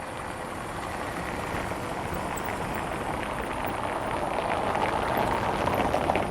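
A car approaching on an asphalt road, its tyre noise building steadily and loudest about five to six seconds in as it passes.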